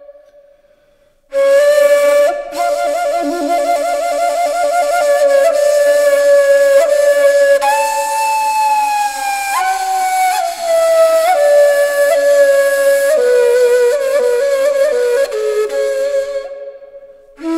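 Background music: a slow solo flute melody of long held notes with vibrato and small pitch glides. It enters after a brief pause about a second in, fades out near the end, and starts again.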